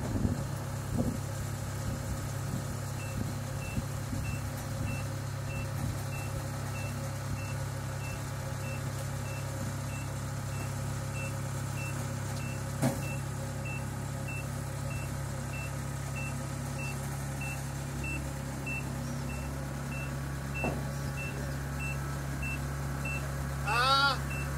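Kubota crawler combine harvester's diesel engine running steadily as the machine climbs loading ramps onto a truck, with a faint warning beeper beeping about twice a second. A brief loud squeal with a bending pitch near the end.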